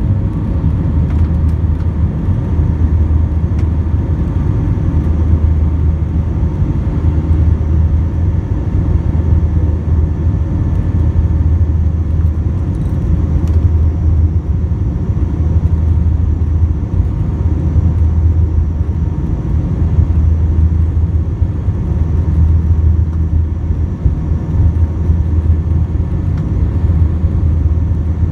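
Airbus A320 cabin noise during the climb after take-off: the engines and the rushing air give a steady, loud low rumble through the fuselage, with faint steady tones above it.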